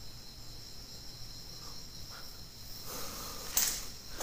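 Crickets chirring steadily in a high, continuous band. About three and a half seconds in, a brief scuffing rustle stands out over them.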